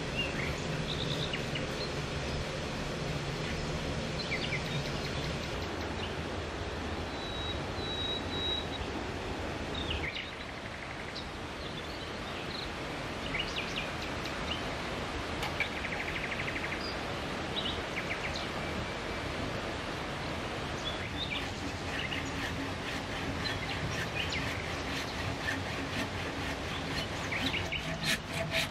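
Steady outdoor background noise with scattered bird chirps. Near the end a hand saw starts cutting a wooden log in rhythmic back-and-forth strokes.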